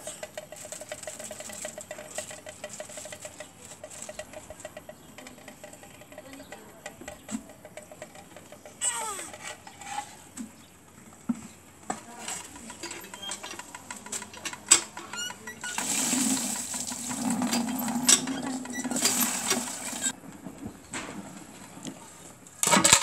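Steel plates and a spoon clinking and scraping on concrete in scattered clicks. About three-quarters of the way through, a few seconds of water gushes from a hand pump.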